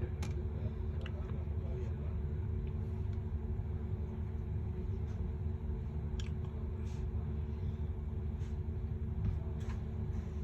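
Light, scattered clicks and taps of small phone parts and tools being handled, over a steady low background hum.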